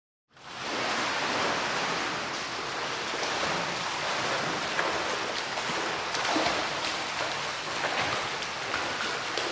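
Steady rushing, splashing water with small irregular splashes, starting abruptly a moment in.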